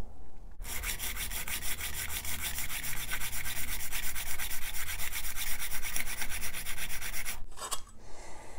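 Edge of a Bahco steel card scraper rubbed back and forth on a Trend diamond stone in rapid, even strokes, a rhythmic scratchy rasp that stops about seven seconds in. The edge is being flattened and squared at 90 degrees, the first step in sharpening a card scraper.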